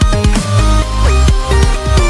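Background electronic dance music with a heavy bass and a steady beat.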